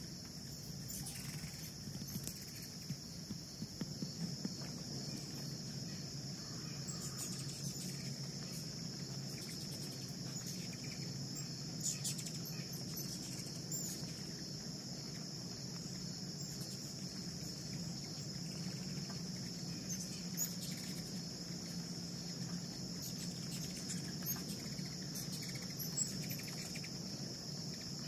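A steady, high-pitched chorus of insects in summer trees, with a low steady hum beneath and a few short, high chirps scattered through.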